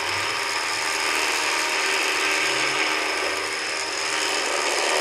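Rough Country Pro 12000S electric winch running steadily, its motor and gear train whining as it winds synthetic rope onto the drum with no vehicle load on the line.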